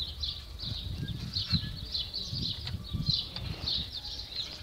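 Wind buffeting the microphone while riding a bicycle, with a quick run of short, high chirps throughout, about three or four a second.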